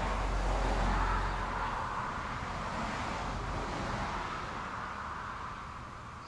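Road noise of a passing vehicle, loudest about a second in and slowly fading away.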